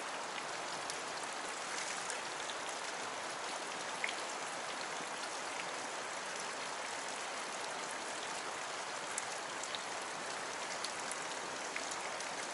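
Steady rush of fast-flowing river current with foam on its surface, sprinkled with small ticks and pops.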